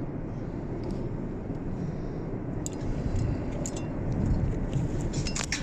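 Steady low rumbling background noise, with a few faint light clicks in the second half.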